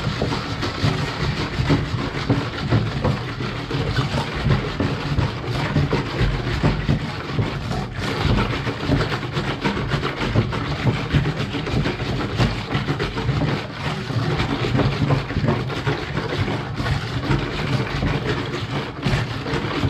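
Wire balloon whisk beating a thin liquid cake batter in a large metal mixing bowl: a continuous clatter and scrape of the wires against the metal.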